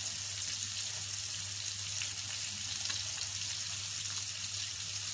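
Potatoes frying in hot oil: a steady sizzling hiss with faint crackles.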